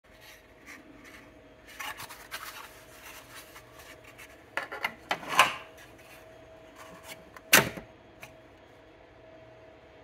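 Steel drawer of a Huot end mill index cabinet and a plastic organizer tray being handled: scattered rubs and light clicks, then a few louder knocks around five seconds in and a sharp one at about seven and a half seconds. A faint steady hum runs underneath.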